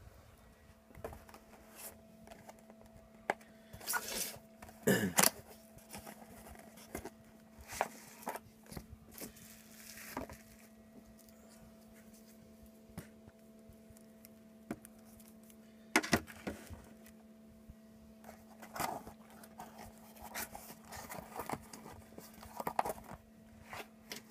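Scattered handling noises: scrapes, knocks and rustles as the plastic quadcopter frame and the camera are moved about, with the loudest knocks about four to five seconds in and again about sixteen seconds in. A faint steady hum runs underneath.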